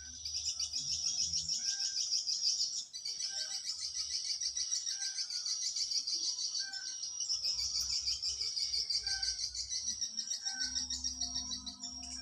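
Birds chirping: a dense, high-pitched chattering trill that goes on without a break, with short repeated call notes about once a second.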